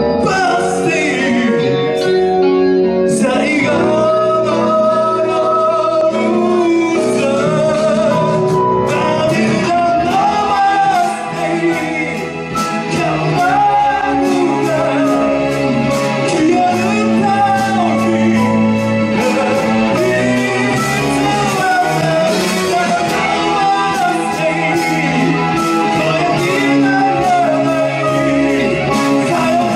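Live rock band playing a Japanese rock kayō cover in a hall, with electric guitar and band backing under singing; the level dips briefly about eleven seconds in.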